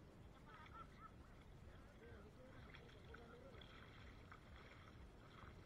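Near silence: faint outdoor shore ambience with faint, distant voices.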